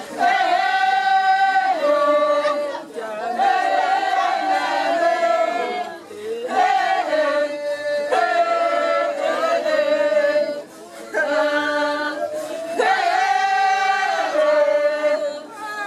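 A funeral song sung by women's voices without instruments. A close, strong female voice holds sustained notes in phrases of two to three seconds, with short breaths between them.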